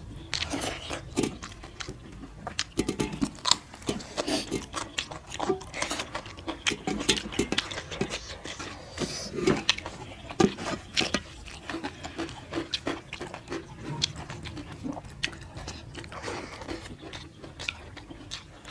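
Close-up eating by hand: wet chewing and mouth smacking on rice and chicken liver curry, with crisp bites of raw cucumber and fingers squishing rice against steel plates, in irregular clicks and crackles.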